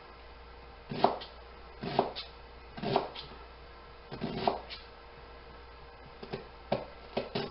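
Chef's knife chopping a white onion on a cutting board: four firm chops about a second apart, then a quicker run of lighter chops near the end.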